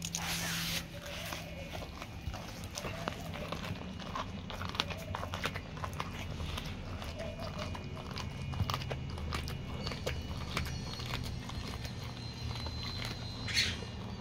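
Dog chewing a raw Spanish mackerel head: irregular crunches and clicks of teeth on fish bone, with a louder crunch near the end.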